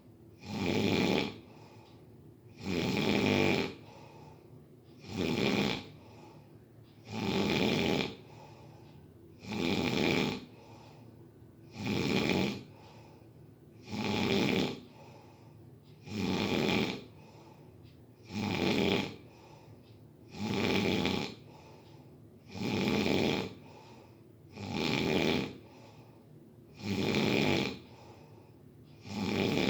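A sleeper snoring in an even rhythm, one snore about every two seconds, each lasting about a second, with quiet breathing between.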